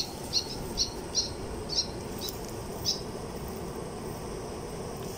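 An animal's call: a run of short, high chirps, two or three a second at first, spacing out until they stop about three seconds in. Steady low background noise underneath.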